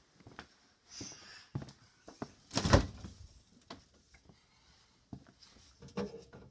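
Scattered knocks and clicks, with one loud thump about two and a half seconds in, then a refrigerator door being opened near the end.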